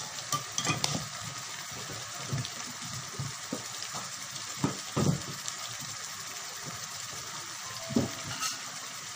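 Cluster beans and potatoes sizzling in hot oil in a pan on a gas stove: a steady frying hiss, with a few short knocks.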